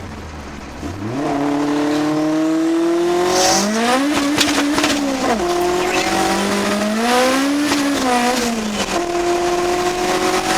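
Honda Civic four-cylinder VTEC engine revving hard: the pitch climbs from about a second in, sweeps up and falls back twice, then holds steady near the end.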